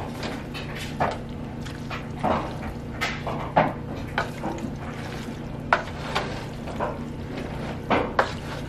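Wooden spoon tossing fettuccine through thick Alfredo sauce in a stainless steel pot: irregular wet squelches and short scrapes and knocks against the pot, over a steady low hum.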